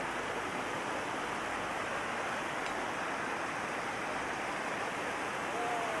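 Steady rush of water from the Dai Yem waterfall and the river below it, an even, unbroken roar.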